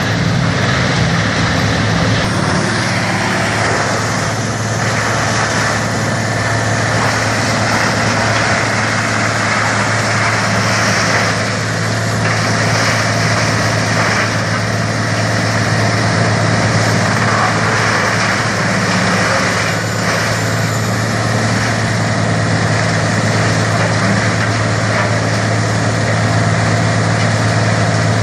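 A grinder machine running steadily: a constant low hum with a broad rushing noise over it, unchanging throughout.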